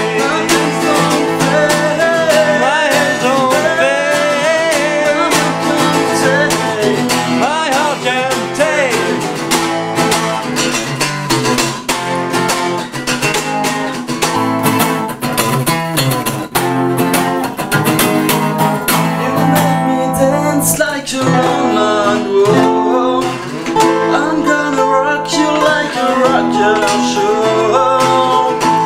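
Two acoustic guitars strummed together with male voices singing over them in a folk-rock song.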